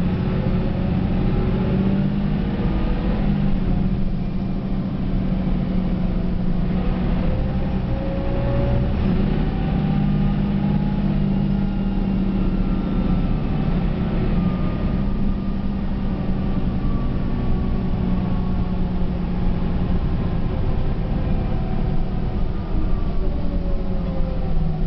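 Mercedes-Benz O405 city bus driving, heard from inside the passenger cabin: a steady low engine drone with a fainter whine that rises and falls as the bus speeds up and slows.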